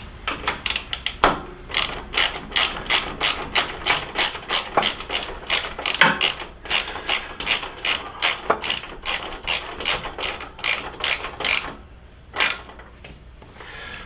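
Socket ratchet clicking in quick, even strokes, about three a second, as a 6mm hex socket drives a crash-bar bolt home. The clicking stops about 12 seconds in, and one more click follows.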